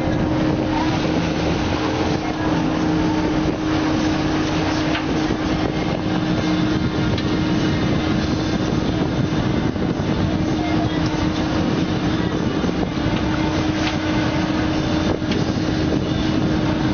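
Boat engine running steadily with a constant hum, under wind and water noise.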